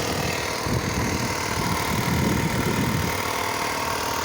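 A motor running steadily, with a louder low rumble for a couple of seconds in the middle.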